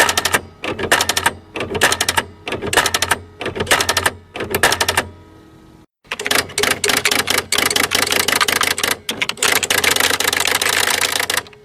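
Electric typewriter being typed on: rapid runs of key strikes clacking over the steady hum of its motor. Short bursts of typing for the first five seconds, a brief lull with only the motor humming, then a longer unbroken stretch of fast typing.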